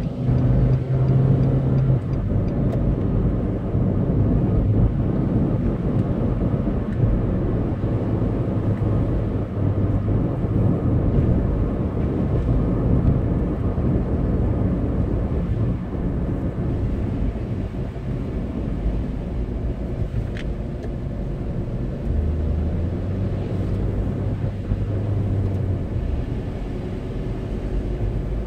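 Car driving, heard from inside the cabin: a steady engine hum under tyre noise on a wet road. The engine note grows stronger for a few seconds near the end.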